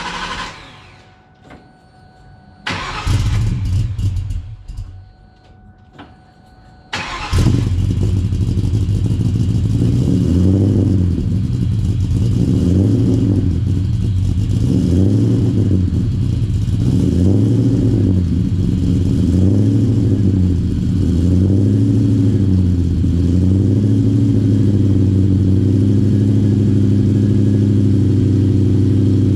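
Ford Mustang Mach 1's 4.6-litre V8, running on E85, cold-started through 3-inch Magnaflow mufflers. The starter cranks it over a couple of times from about three seconds in; the engine fires about seven seconds in and runs a high cold idle that rises and falls in pitch every couple of seconds, then holds steady over the last few seconds.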